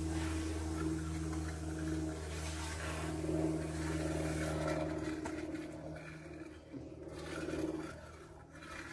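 A steady low mechanical hum, with a rushing hiss over it that fades about five seconds in and swells again briefly near the end.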